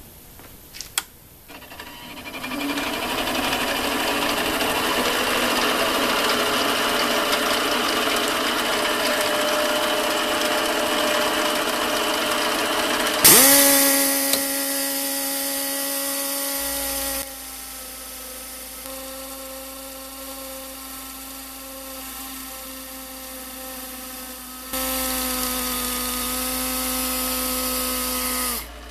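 A mini lathe running, then about halfway through a pneumatic die grinder is triggered on, with a sudden burst of air hiss and a steady high whine. Its stone is grinding the jaws of the spinning three-jaw chuck. The level drops abruptly a few seconds later and jumps back up near the end.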